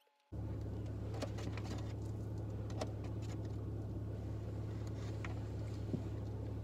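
Steady low hum of a car's running engine heard inside the cabin. It cuts in abruptly just after the start, with a few faint clicks over it.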